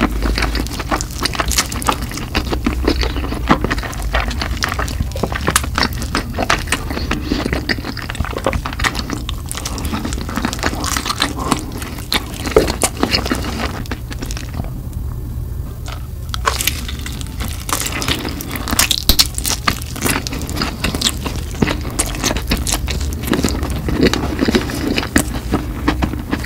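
Close-miked chewing of crispy, sauce-glazed spicy fried chicken: dense, irregular crunching and crackling, with a short pause about halfway through.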